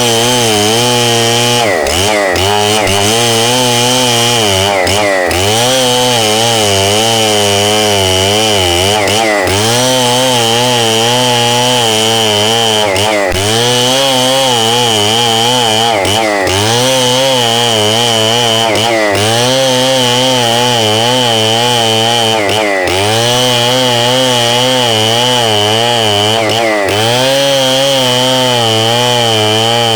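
Stihl 070, a big two-stroke chainsaw, running hard while cutting red meranti wood. Its engine note dips briefly every three to four seconds and picks back up.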